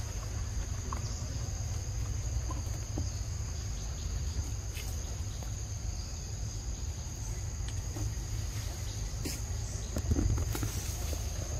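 Steady high-pitched insect drone, two close tones held without a break, over a low rumble. A few faint clicks and rustles, with a louder low bump about ten seconds in.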